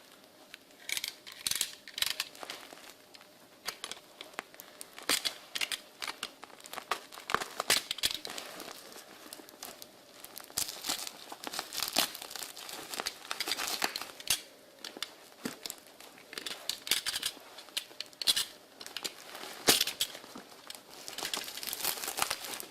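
Packaging being unwrapped by hand: irregular crinkling and rustling with sharper crackles and tearing sounds, in uneven bursts throughout.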